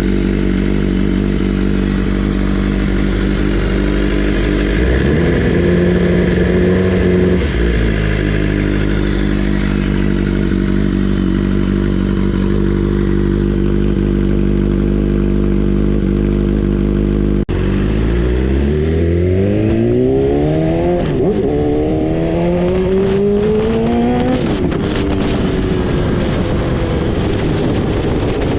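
BMW S1000RR inline-four engine breathing through a full Akrapovic 4-into-1 exhaust, idling steadily after a cold start, with a brief small rise in revs about five seconds in. After an abrupt cut about two-thirds of the way through, the throttle is blipped a few times, the revs rising and falling back to idle.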